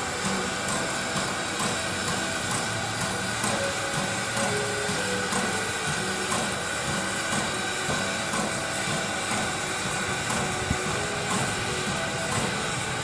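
Steam locomotive No. 90, a 2-10-0, rolling slowly past with a steady hiss of steam from around its cylinders, over a low rumble of the train moving along the track.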